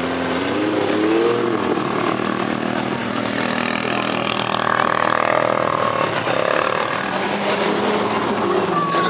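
Engines of off-road 4x4s revving, their pitch rising and falling repeatedly as they work through the muddy track.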